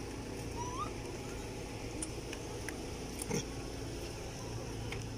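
Quiet outdoor background with a steady low hum, a few faint clicks, and one brief faint rising squeak a little under a second in.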